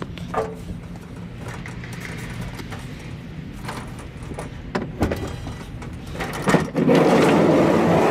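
Scrap metal being handled: scattered clanks and knocks, then near the end about two seconds of loud scraping as a heavy metal piece is dragged or slid, with a clank either side. A low steady hum runs underneath.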